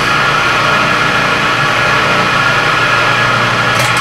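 Vertical milling machine running steadily, its motor and spindle giving an even hum with a steady whine, with a slitting-saw blade mounted. A light tick comes near the end.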